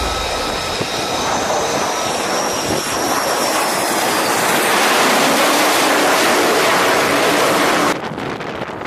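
Twin jet engines of an F/A-18 fighter on approach and landing on an aircraft carrier's flight deck, with a high whine falling in pitch at first and the jet noise growing louder toward touchdown; it cuts off abruptly about eight seconds in.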